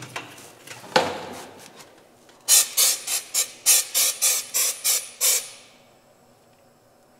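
Compressed-air powder-coating gun firing powder in short hissing puffs, about a dozen in quick succession at roughly four a second, after a single sharp click about a second in.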